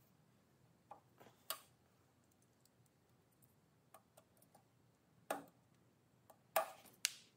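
Sharp metallic clicks and taps as the ringed piston of a Predator 420 engine is worked into the cylinder bore by hand, a small tool pressing the piston rings in without a ring compressor. A few light clicks about a second in, louder ones past the middle and near the end.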